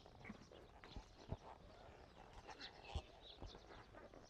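Near silence, broken by a few faint, soft thuds of a horse's hooves as she walks under a rider.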